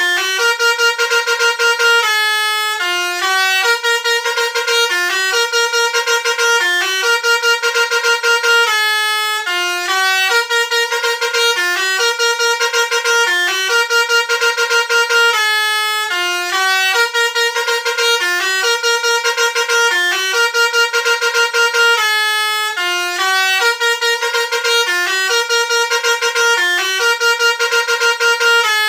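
Bus telolet 'basuri' musical horn playing a tune: a repeating phrase of short, stepped horn notes with a fast warbling flutter on each note.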